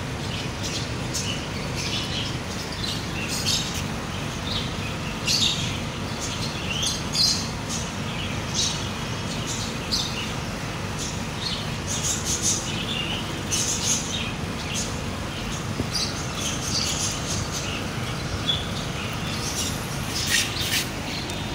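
Small birds chirping: short, high chirps every second or two, over a steady low background noise.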